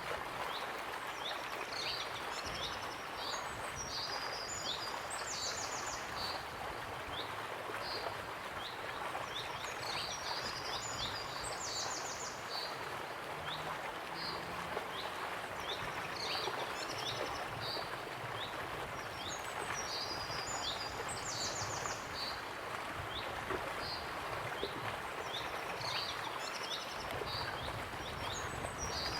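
Waterfall's steady rushing water with birds singing over it: short high chirps and a buzzy trill that come back in groups every several seconds.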